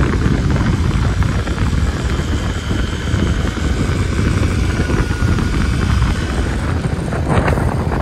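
Wind buffeting the microphone over the low, steady rumble of a vehicle on the move.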